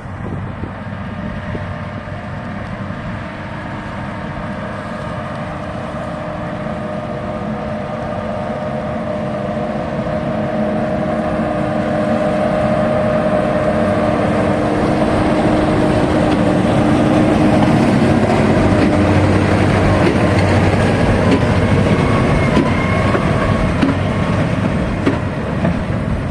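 240-horsepower Case tractor running under load with the New Holland big baler working behind it: a steady machinery drone and clatter that grows louder over the first two-thirds as the outfit comes closer.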